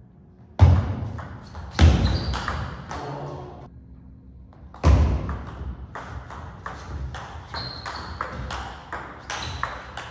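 Table tennis rally: the ball clicking off the bats and the table in quick, uneven succession. There are heavy thuds about half a second, two seconds and five seconds in, and two short high squeaks.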